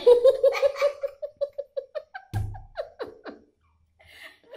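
A person laughing in a quick run of short 'ha-ha' pulses that trails off over about two seconds, then a single dull thump.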